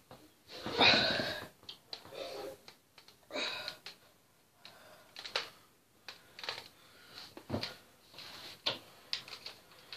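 Scattered clicks, knocks and rustles of a plastic toy water gun being picked up and handled.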